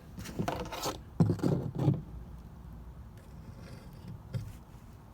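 Handling noise: two short bursts of knocks and scrapes in the first two seconds, as if something is being picked up and shifted, then quiet background.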